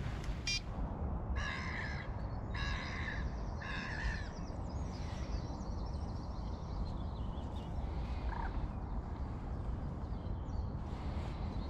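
A bird calls three times in quick succession, each call short and harsh with rich overtones and about a second apart, and gives one fainter call later, over steady outdoor background noise. A brief high click comes just after the start.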